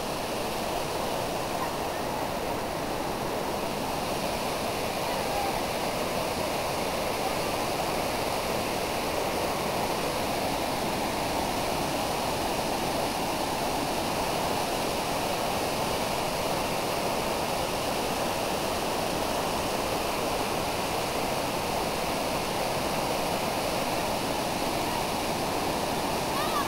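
Iguazú Falls' large cascades pouring down: a steady, dense rush of falling water.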